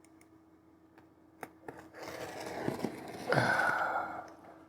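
An X-Acto hobby knife with an old dull blade cutting into a package: a couple of light clicks, then a scratchy rasp of the blade working through the packaging, louder about three seconds in and fading near the end.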